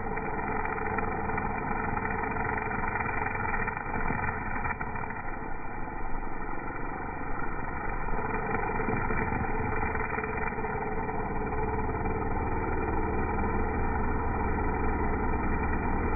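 Gas-powered string trimmer engine running steadily at cutting speed while trimming grass.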